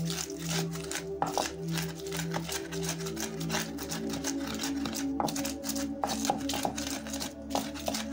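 Wooden pestle grinding onions and peppers in a ridged earthenware bowl: quick, irregular scraping and knocking strokes, over background music with held tones.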